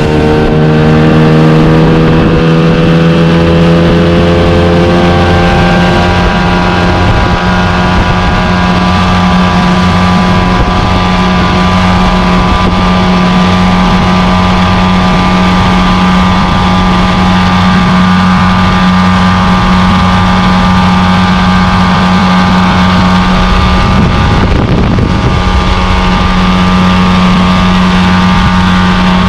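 Small outboard motor pushing an open dinghy across the water. Its pitch rises over the first several seconds as it picks up speed, then it runs steady, with a brief wobble in the note near the end.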